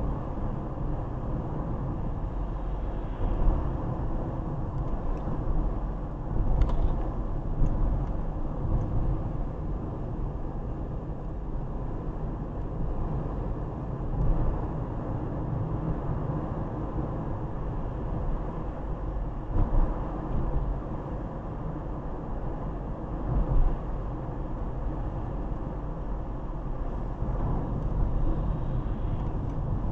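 Steady road and engine noise inside a moving car's cabin, with a few brief louder bumps.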